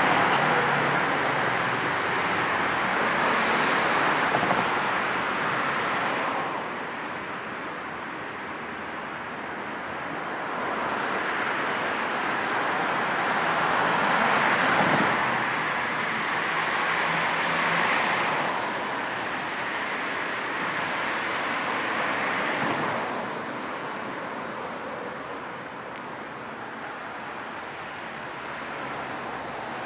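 Road traffic ambience: cars passing one after another as a steady tyre-and-engine hiss that swells and fades as each goes by, with quieter stretches about a third of the way in and near the end.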